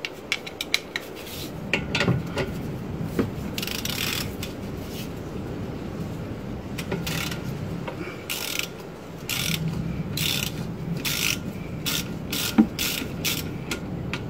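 Socket ratchet clicking in short runs with pauses between them as a 15 mm nut on the exhaust front flexi pipe is undone.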